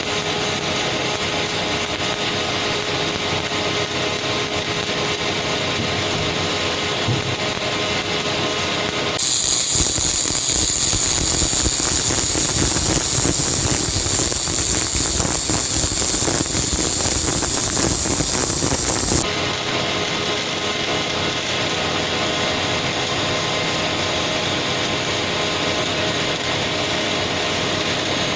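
Automatic pipeline welding machine: a steady machine hum with a few steady tones, then about nine seconds in the welding arc comes on with a loud crackle and a high hiss for about ten seconds, stopping abruptly and leaving the hum again.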